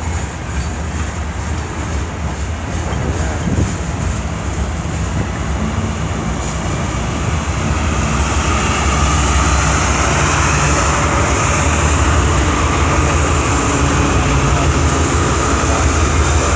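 CN freight train running: a steady low diesel rumble with wheel and rail noise, growing louder about halfway through.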